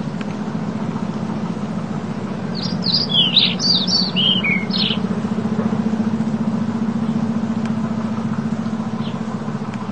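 Small birds chirping in a quick flurry of short, falling high notes for about two seconds, starting a little after two seconds in, with a single faint chirp later. Under them runs a steady low drone.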